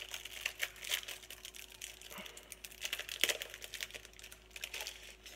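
Plastic card packaging being opened and the trading cards inside handled: a run of quick, irregular light clicks and crinkles.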